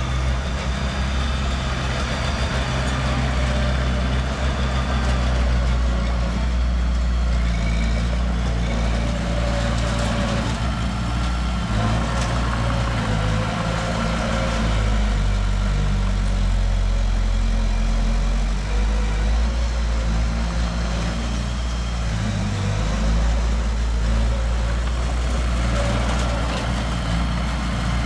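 Heavy diesel construction machinery running steadily, a continuous low engine drone with small shifts in pitch.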